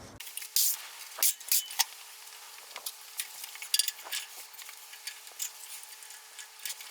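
Scattered light clicks, taps and scrapes of tools and workpieces being handled on a workbench, irregular and short, over a faint steady hum.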